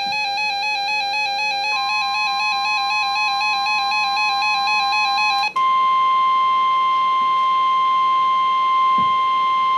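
Music, a single wavering held note with many overtones, with a faint steady beep entering under it. About five and a half seconds in, the music cuts off and the NOAA Weather Radio 1050 Hz warning alarm tone takes over: one steady high beep held loud, which announces the next warning.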